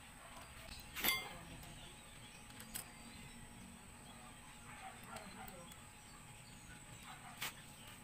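Metal clinks from hand tools and shifter parts being handled: one loud, ringing clink about a second in, then two or three fainter clicks.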